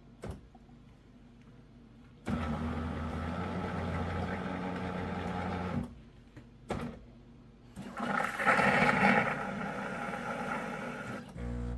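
Terra Kaffe TK-02 super-automatic espresso machine working through a latte: a steady machine hum for about three and a half seconds, a click, then a louder, noisy hissing stretch of about three seconds, and a short rapid pulsing near the end.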